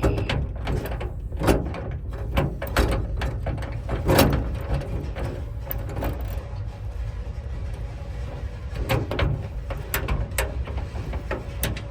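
Irregular metallic clicks and knocks of lock parts and hand tools being worked inside a van's side door, with a louder knock about four seconds in, over a steady low rumble.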